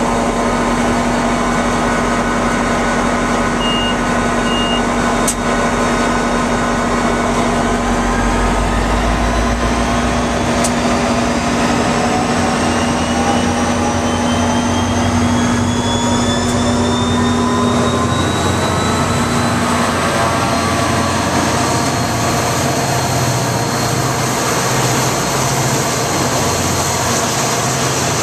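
NJ Transit GP40PH-2 diesel locomotive passing close by with its engine running, a deep drone with a steady hum, then its passenger coaches rolling past. From about a third of the way in, a whine climbs steadily in pitch for several seconds.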